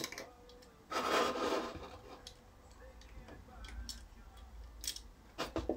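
Hands handling a two-stroke chainsaw crankcase half: scattered light clicks and taps of the metal and plastic parts, with a short scraping rub about a second in.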